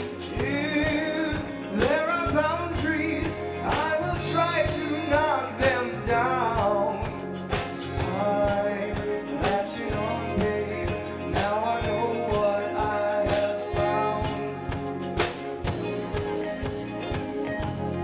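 Live band music: a woman singing lead over electric bass, drum kit and electric guitar, with a steady beat.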